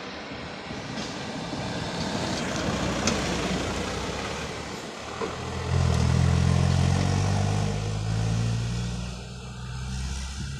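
Road traffic passing close by: tyre and engine noise swells over the first few seconds, then a heavy truck or bus engine goes by with a deep, steady note from about six seconds in, fading near the end.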